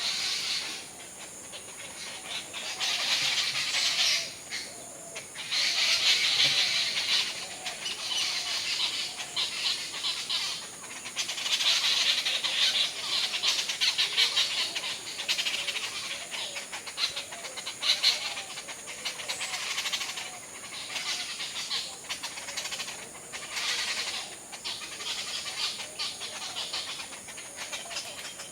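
A large flock of birds chattering at their roost, many overlapping short calls swelling and easing in waves.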